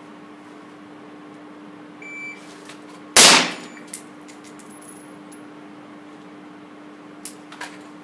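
Shot timer's short electronic start beep, then about 1.2 seconds later a single suppressed carbine shot that rings on in the range's reverb, followed by a few lighter knocks and rattles of gear and two small clicks near the end. A steady low hum sits underneath.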